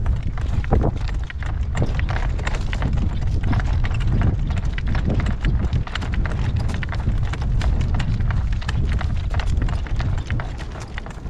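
Morgan horse's hooves clip-clopping steadily on a dirt road as it pulls a carriage, with many knocks and rattles throughout. A heavy low rumble of wind buffeting the microphone runs underneath.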